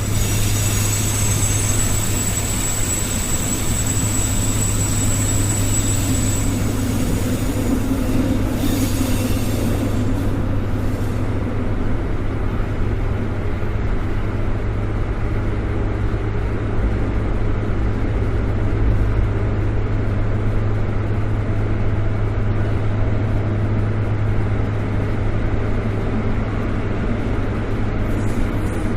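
Subway train running, a steady low rumble of the cars on the rails. A thin, high squeal rides over it for the first six seconds or so, then fades away.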